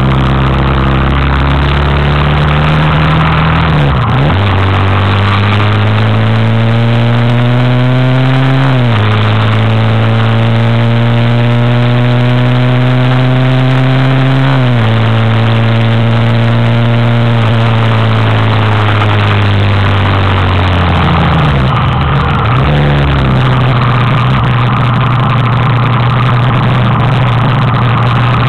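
Daelim Roadwin 125 cc motorcycle engine pulling up through the gears: its pitch climbs twice and drops sharply at upshifts about nine and fifteen seconds in. It then runs at a steady cruise with a brief dip a little past twenty seconds in, under constant wind and road noise.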